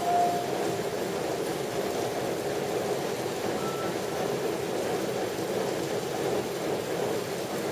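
Steady rain falling, an even dense hiss with no letting up. A short clear tone sounds right at the start.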